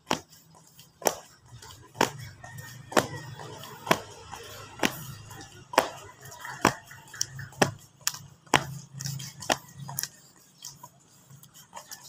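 Sharp claps or slaps repeating about once a second, in time with a person doing jumping jacks, thinning out over the last couple of seconds.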